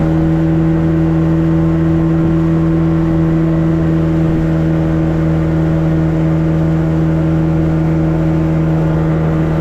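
Boat's outboard motor running steadily at cruising speed, holding one even pitch, as the small boat planes across the water.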